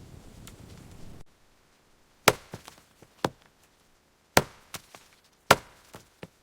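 A knife chopping on a wooden cutting board: a series of sharp, separate chops at an uneven pace, a few loud ones with softer ones between. It follows a soft background hiss that cuts off about a second in.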